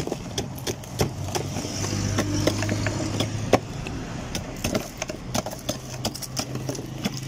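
Ice pick stabbing into a block of ice, a rapid irregular series of sharp taps and cracks as chunks split off. A steady low hum runs underneath for much of it.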